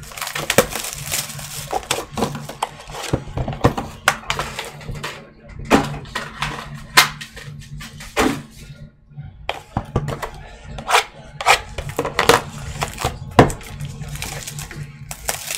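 Plastic shrink-wrap being torn and crumpled off a sealed box of trading cards, crinkling and crackling, with sharp clicks and a few knocks as cardboard boxes are handled.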